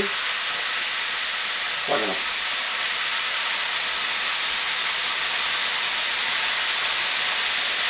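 Floured chicken thighs frying in hot vegetable oil in an electric skillet: a steady sizzle as the pieces are flipped over with tongs. A brief voice sound about two seconds in.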